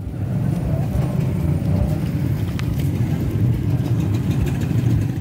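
Motorcycle engines running, a steady low engine sound as bikes ride past.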